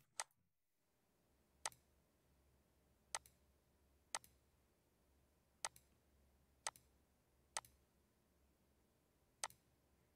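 Computer mouse button clicks, about eight at uneven intervals of one to two seconds, each a sharp press followed closely by a softer release.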